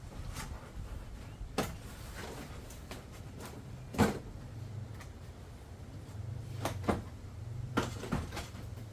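Plastic interior trim panels being handled and pushed into place, with scattered knocks, clicks and scrapes of hard plastic, the loudest knock about four seconds in.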